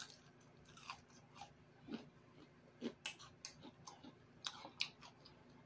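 A person chewing a mouthful of crunchy chips: faint, irregular crunches and mouth clicks.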